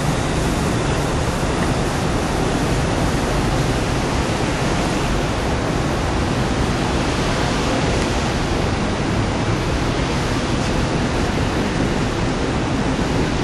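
Steady, loud rushing noise of wind buffeting the microphone, even across all pitches; no engine note, horn or bell stands out above it.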